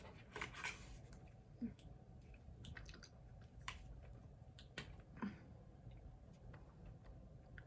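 Faint, scattered clicks and small handling noises over quiet room tone, a few seconds apart.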